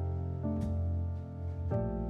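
Background music: soft piano with sustained chords changing about every second.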